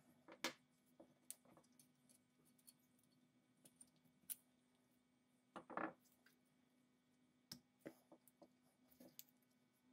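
Scattered small metallic clicks and taps as the lock parts of an antique pepperbox pistol are worked with a screwdriver and handled. A longer, louder clatter comes about six seconds in.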